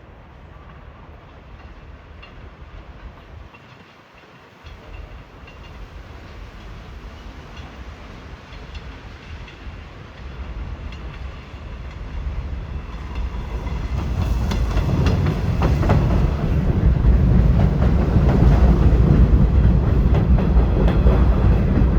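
New York City subway train approaching along the elevated Astoria Line, growing steadily louder into a loud rumble, with wheels clicking over the rail joints once it is close, from about fourteen seconds in.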